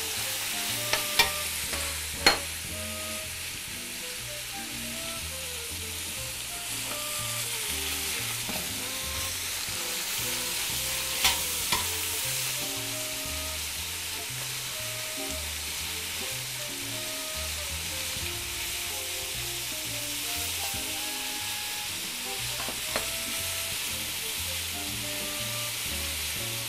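Veal cubes searing in hot fat in a stainless-steel stockpot: a steady sizzle. The metal tongs click against the pot a few times as the meat is turned.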